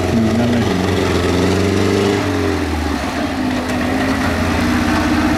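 Tractor engine running, its revs rising gradually for about two seconds, then dropping back and holding steady.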